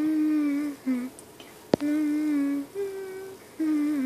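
A person humming a slow tune in long held notes, mostly on one pitch with a step up to a higher note partway through. A single sharp click sounds a little under two seconds in.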